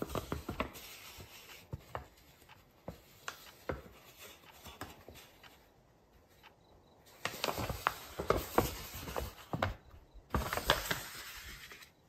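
Stiff, aged paper rustling and crinkling as a letter is unfolded and handled, in bursts of crackly rustle near the start and again through the last five seconds, with scattered small clicks between.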